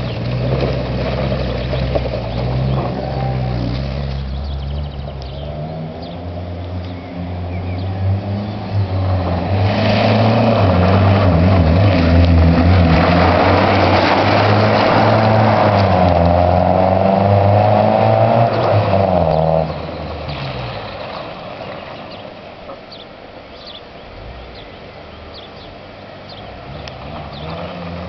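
Small hatchback car driven hard on a dirt track, its engine revving up and down. It is loudest for several seconds as it passes, about ten seconds in, then drops off suddenly and fades as it drives away.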